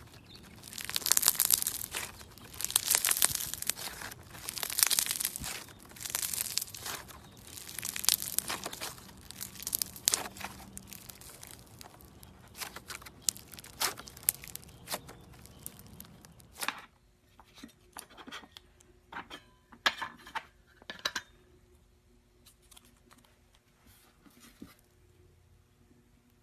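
Mirror putty slime being stretched and pressed, crackling and popping as trapped air bubbles burst: crackly swells about every two seconds, then scattered sharper pops. About two-thirds in it drops to quieter, sparser clicking pops.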